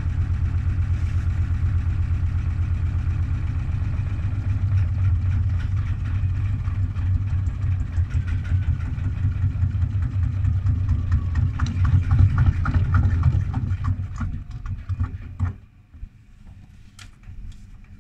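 Gorenje washing machine spinning with an unbalanced load in test mode: a deep, fast-pulsing rumble from the drum, with rattling and knocking that build up. About fifteen seconds in the spin cuts off suddenly, leaving scattered clicks.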